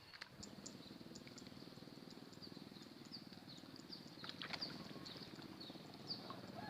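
Faint outdoor ambience: short high chirps repeat throughout, over a low steady rattle, with a few clicks near the start and about four seconds in.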